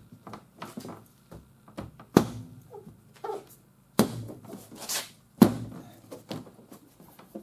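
Plastic aftermarket bumper cover being pressed by hand into its clips at the fender edge: three sharp snaps, about two, four and five and a half seconds in, the last the loudest, among lighter clicks and plastic rustles.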